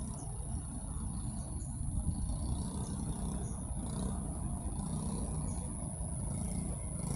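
Low steady rumble of road traffic, with a faint high steady whine above it.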